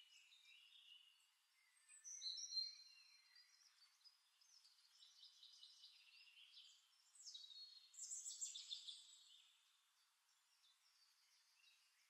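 Near silence, broken by faint high chirps about two seconds in and again from about seven to nine seconds in.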